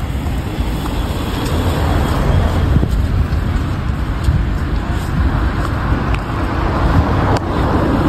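Road traffic noise: cars on the road alongside, a steady rumble and hiss.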